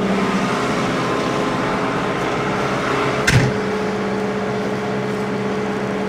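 Tractor engine running steadily, driving a grain-bag debagger and its auger as they unload barley into a chaser bin. About three seconds in there is a single knock as the tractor's cab door is shut.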